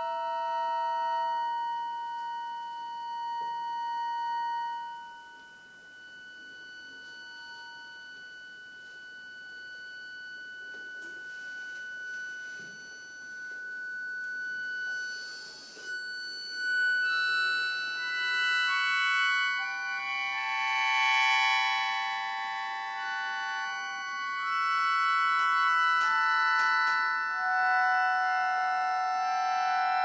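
Accordion holding sustained, overlapping high chords in sho-like clusters. About five seconds in the sound thins to one soft held tone. From about halfway, denser and louder chords build, and a recorder joins in the later part.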